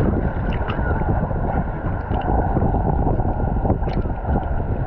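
Small sea waves sloshing against a camera held at the waterline, heard as a steady low rumble of water with wind buffeting the microphone. A few faint ticks of splashing droplets come through it.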